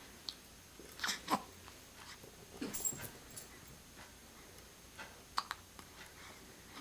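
A pet animal making several short, sudden sounds: a pair about a second in, a cluster near three seconds, and another pair about five and a half seconds in.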